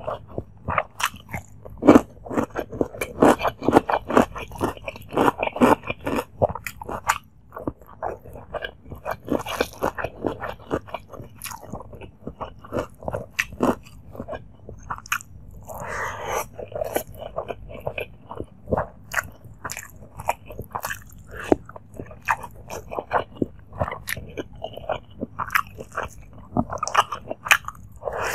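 Close-miked mouth sounds of eating rice and chicken curry by hand: continuous wet chewing with crisp crunching bites of raw cucumber, a dense stream of small clicks and crackles.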